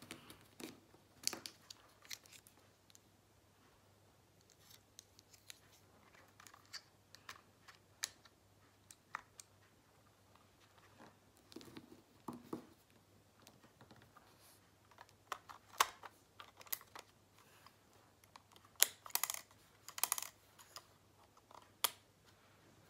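Faint, scattered clicks, taps and rustles of hands handling a Canon PowerShot G7X Mark III compact camera, with a quicker run of clicks and rustling about three-quarters of the way through.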